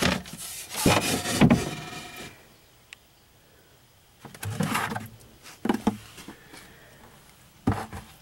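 Wooden top of a homemade bucket composting toilet being lifted open and its plastic buckets handled: knocks, wood-on-wood and plastic scraping. A dense clatter in the first two seconds, then a pause and a few shorter knocks and scrapes later on.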